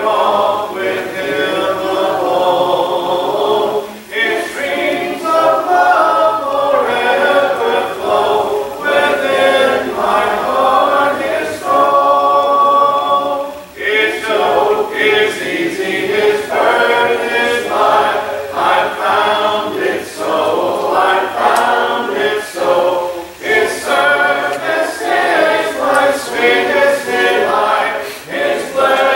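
Congregation singing a hymn a cappella, with no instruments, in time with a song leader's beat, with brief pauses between lines.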